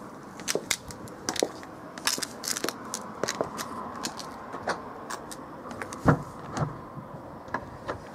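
A wooden gate with a metal bolt latch being handled: an irregular run of sharp clicks and knocks, with one heavy thump about six seconds in.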